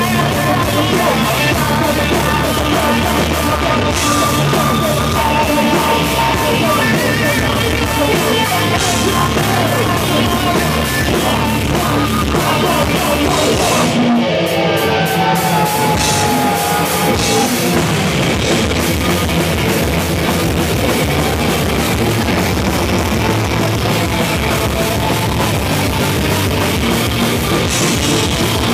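A live heavy punk/metal band plays at full volume: distorted electric guitars, a fast drum kit and shouted vocals. About halfway through, the cymbals drop out for a moment before the full band comes back in.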